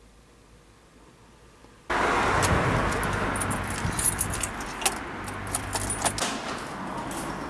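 A bunch of keys jangling and clicking at a front door, with many sharp metallic jingles in the middle seconds. Underneath runs steady street noise with a car engine rumbling; the first couple of seconds are nearly quiet.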